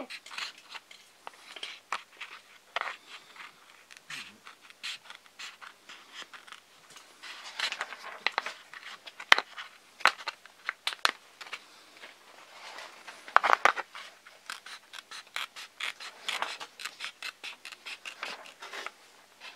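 Scissors snipping through a thin clear plastic canopy in a long series of short, crisp cuts, with denser runs of snips a third and two-thirds of the way through.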